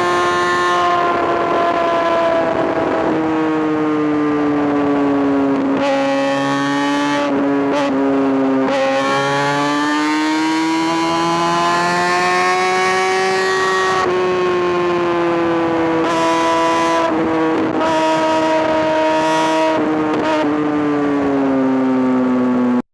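Kawasaki ZX-6R's inline-four engine running at high revs, its pitch sagging slowly, climbing again around the middle, then easing back down, with no sudden breaks.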